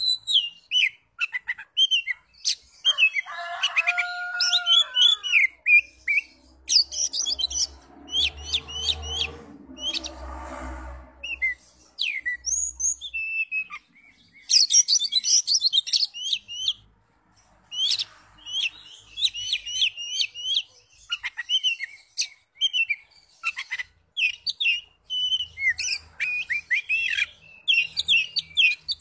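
An Oriental magpie-robin singing a long, varied song of quick chirps, trills and whistles, with only short pauses. A few lower, held whistles come a few seconds in. A faint low rumble sits under the song near the middle.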